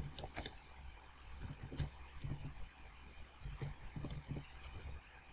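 Computer keyboard keys clicking one at a time at an unhurried, uneven pace as a short terminal command is typed; the clicks are faint.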